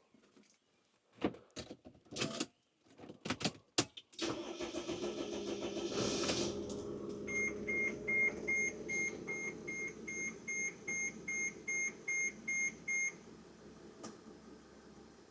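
A few clicks and knocks, then about four seconds in the camper van's engine is cranked and catches, settling into a steady idle. For about six seconds a warning chime beeps over the idle, roughly two and a half beeps a second, then the engine idles on more quietly.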